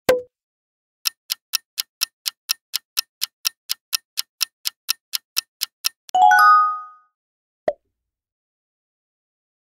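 Quiz countdown-timer sound effect: a short pop as an answer option appears, then clock ticks at about four a second for five seconds, ending in a bright chime of several ringing tones when time runs out. A single short pop follows as the slide changes.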